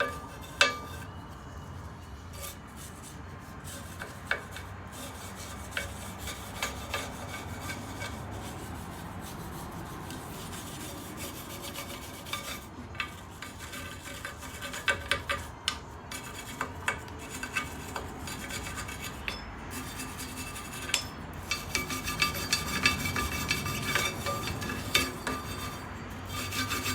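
Steady hand scraping and rubbing on used drum brake parts, with frequent light clinks of metal parts knocking together, busiest near the end.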